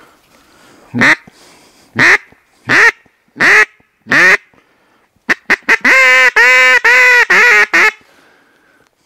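Duck call blown close by in a mallard quacking pattern: five separate quacks, each breaking upward in pitch, then a quick run of short notes and a string of longer quacks running together, stopping at about eight seconds.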